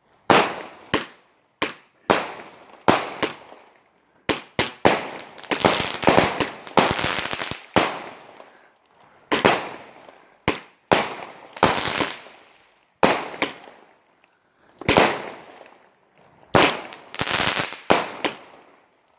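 A consumer firework barrage, the Beijing Blitz, firing a long irregular string of loud bangs, roughly one or two a second. Each bang trails off in a short crackling decay, with brief pauses between clusters.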